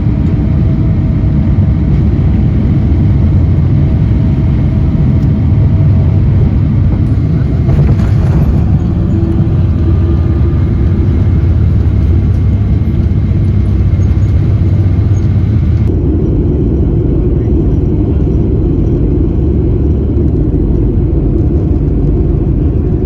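Loud steady rumble of a jet airliner, a Boeing 777-200, for about the first sixteen seconds. It then changes suddenly to the rumble of a Boeing 737-900ER, carrying more in the mid range.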